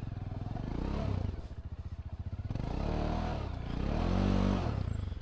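Motorcycle engine running under load over rough dirt, its revs rising and falling a few times as the throttle is worked, loudest about three and four seconds in.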